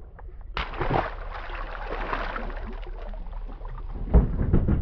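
A large sea robin dropped back into the sea splashes about half a second in and keeps splashing at the surface for a few seconds. A few low knocks against the boat follow near the end.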